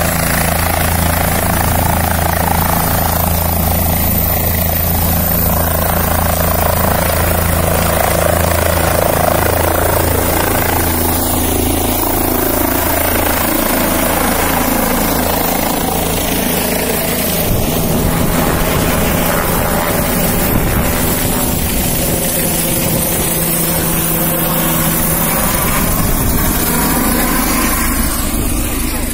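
Helicopter running close by, a loud, steady rotor and engine drone. The low thudding grows choppier about two-thirds of the way through.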